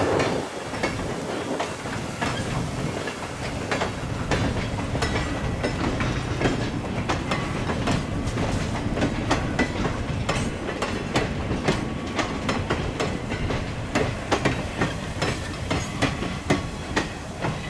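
Passenger coaches rolling slowly past, their steel wheels clicking and clacking over the rail joints above a steady rumble.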